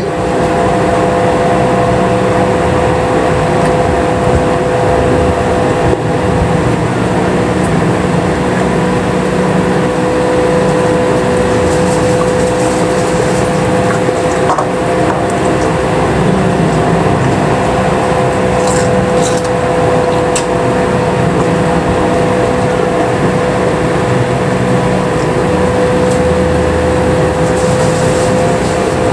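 A steady machine hum with a constant tone, running evenly throughout at an unchanging level.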